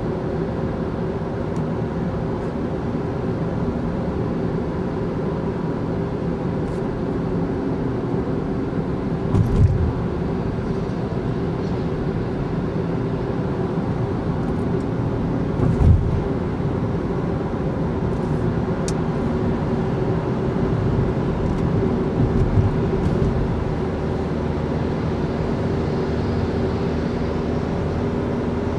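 Steady road and engine noise heard inside a car's cabin at motorway speed, with two brief low thumps, one about a third of the way in and one just past halfway.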